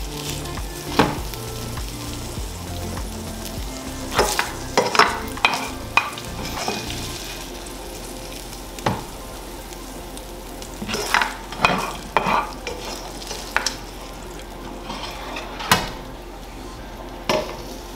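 Browned ground pork sausage sizzling in a skillet while a utensil scrapes and clacks against the pan at irregular moments, scooping the crumbles out to drain.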